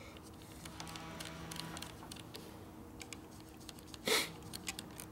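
Light, irregular metallic clicks and taps of a wrench working a battery terminal bolt, with one louder clank about four seconds in.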